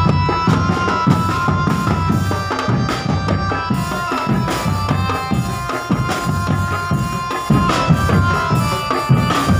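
Drum band music: a bass drum and snares keep a fast, steady beat under a high melody of held notes that step from one pitch to another.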